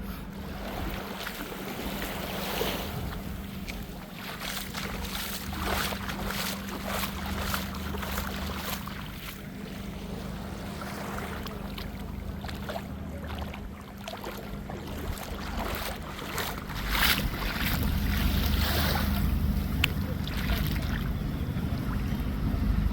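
Wind buffeting the microphone over waves washing on a beach, with a steady low hum underneath. The wind rumble gets louder about three-quarters of the way through.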